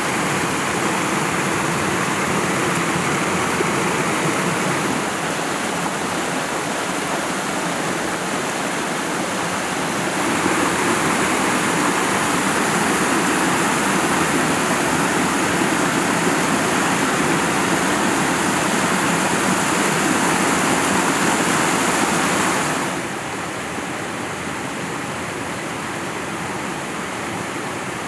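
A stream rushing steadily over small rocky cascades. It grows louder about ten seconds in and drops to a softer, duller rush about 23 seconds in.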